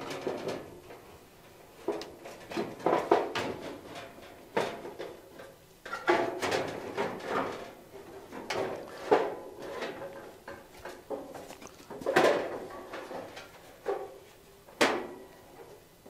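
Sheet-metal top cover of a vent-free propane wall heater being worked back into place: irregular knocks, clanks and rattles of thin metal, several ringing briefly, the loudest about nine, twelve and fifteen seconds in.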